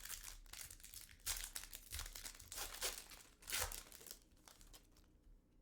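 Plastic wrapper of a trading-card pack crinkling and tearing as it is opened by hand, in a string of irregular rustles that die down near the end.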